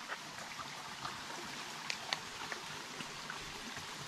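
Steady forest background hiss with a few faint clicks and snaps scattered through it, and a brief high note at the very end.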